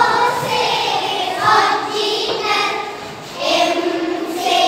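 A group of young girls singing together in unison, holding long notes phrase by phrase.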